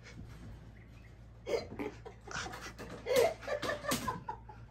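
People laughing in several short, broken bursts, starting about a second and a half in.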